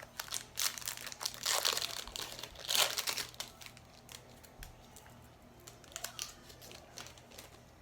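Crinkling of a hockey card pack wrapper being handled, in quick rustling bursts that are loudest in the first half, then thin out and grow quieter.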